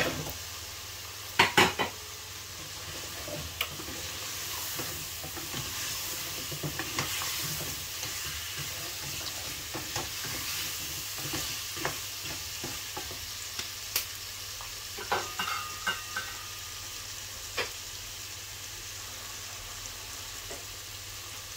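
Peeled taro corms tipped from a steel colander into an aluminium pot, with loud knocks at the start, then a wooden spatula stirring them through the spice masala as it sizzles. Scattered scrapes and knocks of the spatula against the pot come through the steady frying hiss.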